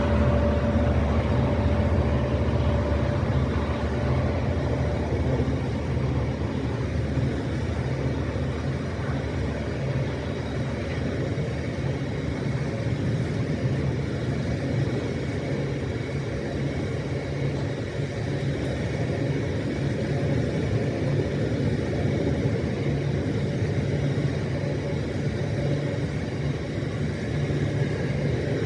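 A train running with a steady low rumble, with a faint whine that fades out about five seconds in.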